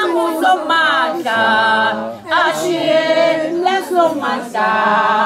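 A group of voices, women's among them, singing unaccompanied in a traditional Swazi song, holding long notes in phrases with short breaks about two and four seconds in.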